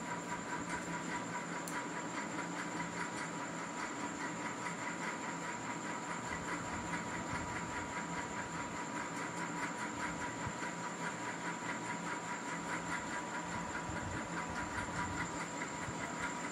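Steady background hiss and hum with faint steady whining tones, unchanging throughout.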